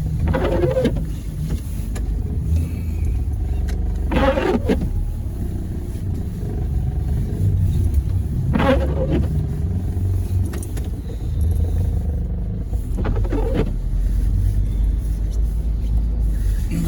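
Steady low rumble of a car heard from inside the cabin. A short sound repeats about every four and a half seconds over it, four times in all.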